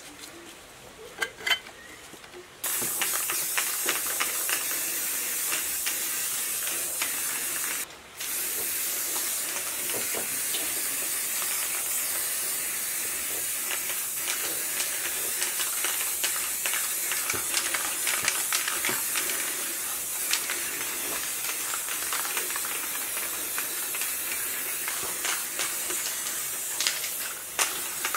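Aerosol spray-paint can hissing steadily in long sprays, starting abruptly a couple of seconds in and stopping briefly about eight seconds in. A few light clicks come just before it starts.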